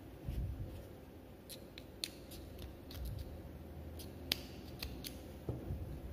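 Small scissors snipping off the spare tail of wool yarn after a knot is tied, a few faint sharp clicks with the loudest about four seconds in, over the soft rustle of fingers handling the yarn.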